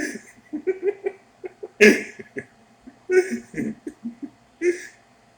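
A man laughing in short bursts of chuckles and giggles.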